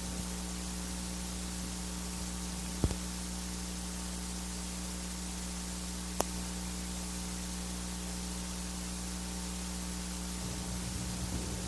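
Steady hiss and electrical mains hum from a live church sound system with nobody at the microphones, broken by two short sharp clicks, about three and six seconds in.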